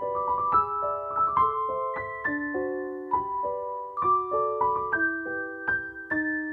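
Background piano music: a slow melody of struck notes, each left to ring over the next.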